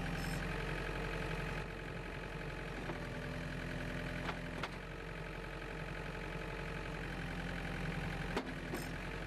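Case 35B compact tractor engine running steadily at working revs while the loader hydraulics open and close the 4-in-1 bucket's jaws. A few short clicks come through about four seconds in and again near the end.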